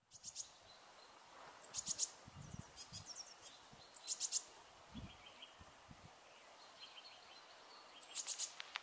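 Small songbirds chirping faintly outdoors: short runs of three to five quick, very high notes, repeated every second or so, with a few soft low thumps in between.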